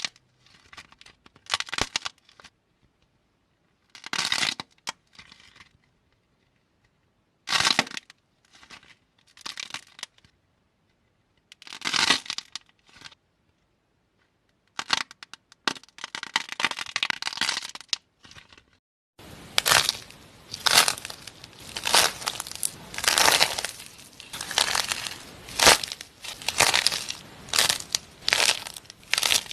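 Dried clay being squeezed and cracked by hand, crackling and crumbling. First come separate bursts of crackling a second or two apart, then from about two-thirds in a dense, continuous crackle.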